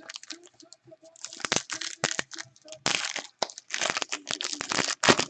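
Plastic wrapper of a 2016 Panini Contenders trading-card pack crinkling and tearing as it is ripped open, in a run of loud rustling bursts from about a second in.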